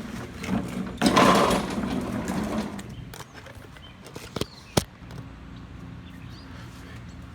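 Lawn-Boy mower's Kohler 6.5 149cc engine pull-started about a second in, a loud burst that settles after a couple of seconds into a steady run, with two sharp clicks in the middle. It starts easily now that its low oil has been topped up, which the owner takes for the cause of its earlier hard starting.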